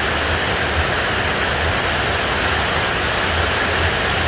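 Steady, even background noise with a low hum underneath; no distinct events stand out.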